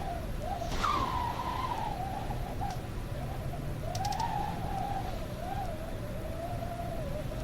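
Wind howling: a wavering, whistle-like moan over a low rumble of rushing air. It surges upward in pitch about a second in, then sinks and wobbles up and down.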